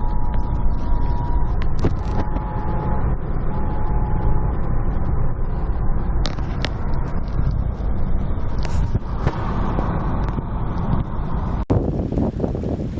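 A vehicle being driven: a steady low road and engine rumble, with a few faint steady tones in the first few seconds. Near the end it breaks off abruptly into wind gusting on the microphone.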